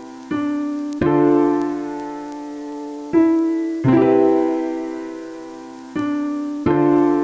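Slow solo piano music: sustained chords struck every second or two, each ringing out and fading before the next.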